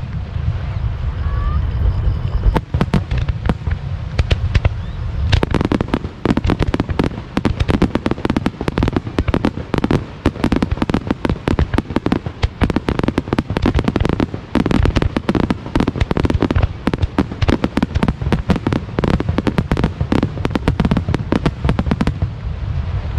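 Fireworks star mine: a rapid-fire barrage of many shells bursting at once, dense crackling bangs over a low rumble. The bangs grow much thicker about five seconds in and thin out near the end.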